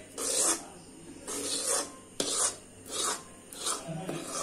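About six rasping strokes of a spatula scraping through sticky hot jaggery-and-peanut chikki mixture, each under half a second, with short pauses between.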